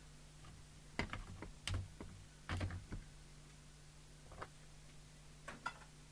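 Wire cutters snipping and working a bit of wire free from a radio chassis: a handful of sharp clicks and snaps spread over several seconds, over a faint steady hum.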